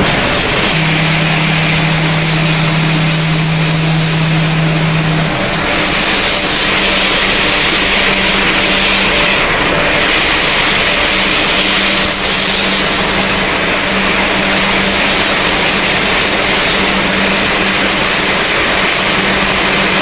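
Snack pellet production line machinery running steadily: a loud, even mechanical noise with a low motor hum and a hiss above it. The hiss changes character a few times, around 6 and 12 seconds in.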